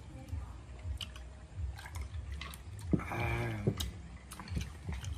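Eating at a dinner table: chewing, with scattered clicks of dishes and cutlery, and a brief voice about three seconds in.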